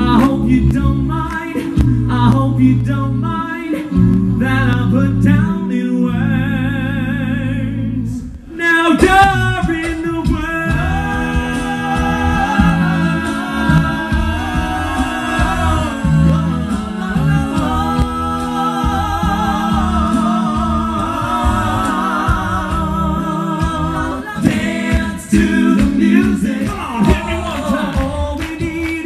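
Male a cappella vocal band singing pop covers live, with close harmonies over a sung bass line. The song changes abruptly about eight and a half seconds in.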